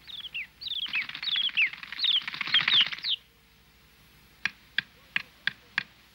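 Birds chirping in quick falling notes over a fluttering of wings for about three seconds, then five sharp taps in quick succession.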